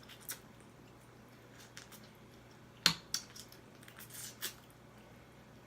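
Crab leg shells being cracked and picked apart by hand, a few scattered sharp snaps and clicks with the loudest crack about three seconds in, and a brief wet squishing of crab meat.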